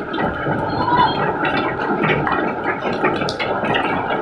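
Hail mixed with rain pelting a wet road: a dense, steady patter of many small impacts.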